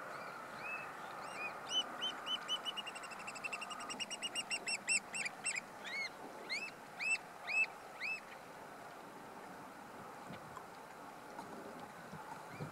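American oystercatchers piping: a long series of arched, whistled calls that speeds up into a fast run, then spaces out into a few separate calls and stops about eight seconds in.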